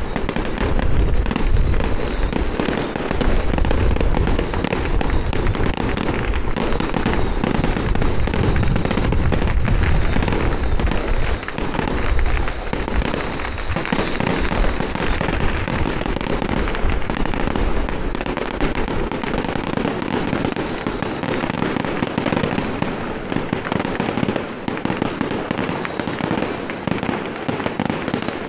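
Firecrackers and fireworks going off nonstop: a dense, unbroken rapid crackle of bangs.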